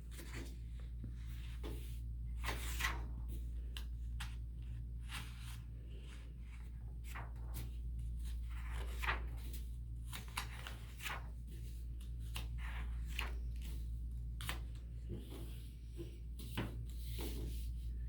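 Paper rustling and crinkling in many short crackles, as raffle tickets or paper are handled, over a steady low electrical hum.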